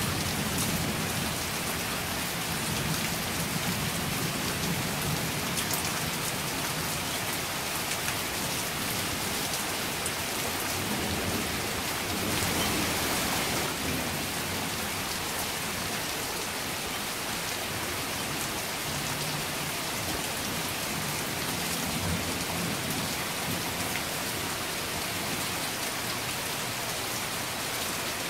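Heavy rain falling steadily, a dense even patter on nearby surfaces. A low roll of thunder dies away in the first couple of seconds, and the rain swells briefly about halfway through.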